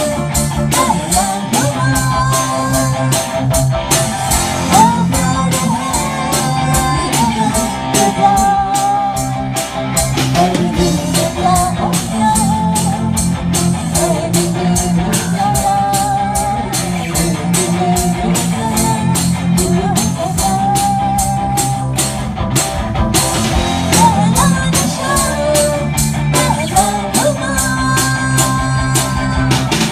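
A rock band playing: a drum kit keeps a steady beat under electric guitar and bass, with a sustained melody line over the top.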